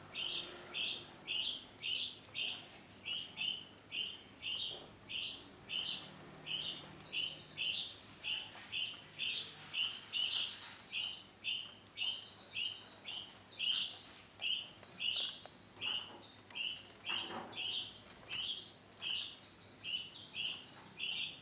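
Female Isabel canary calling: a steady run of short, repeated chirps, about two a second.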